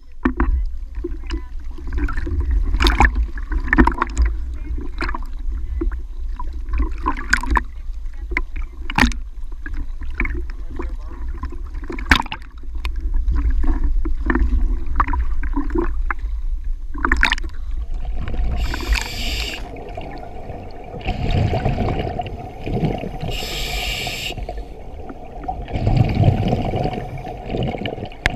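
Lake water slapping and splashing against a waterproof camera housing at the surface, with low wind rumble. About 18 seconds in it goes under, and a scuba regulator's breathing takes over: a hissing inhalation, then a burst of exhaled bubbles, every couple of seconds.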